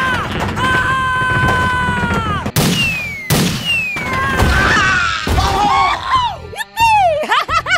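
Dubbed cartoon sound effects: a long high wail that drops off at its end, then two sharp crash hits, each followed by a falling whistle, and near the end a run of short rising-and-falling chirps.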